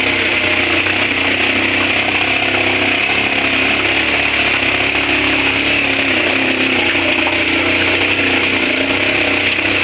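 Motorcycle engine running steadily at low speed while being ridden.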